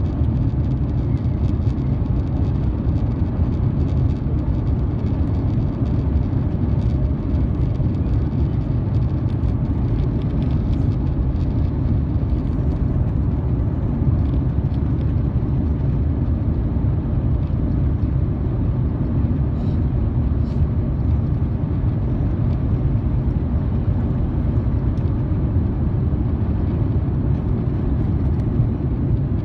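Steady low rumble in the cabin of an Airbus A350-900 taxiing on the ground, its Rolls-Royce Trent XWB engines running at low thrust.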